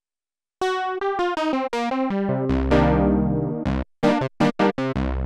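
Sequential Prophet-10 analog polyphonic synthesizer playing a factory preset with sharp-attack, decaying notes. After about half a second of silence, a quick run of single notes steps downward, then full chords ring over a deep bass, and short chopped chords follow near the end. The signal is taken straight from the synth's output, so it is dry, with no room sound.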